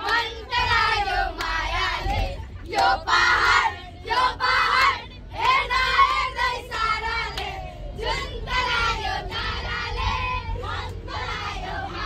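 A group of children's voices singing and shouting together in short, high phrases, with brief breaks between them.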